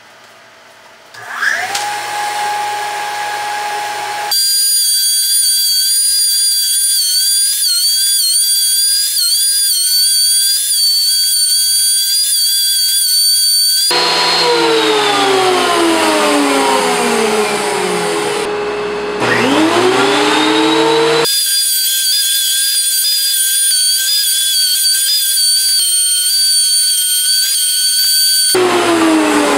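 Craftsman benchtop thickness planer spinning up and running with a loud high-pitched whine as walnut boards are planed, its pitch wobbling slightly now and then. Twice it winds down with a long falling whine after being switched off, and once it starts up again with a rising whine.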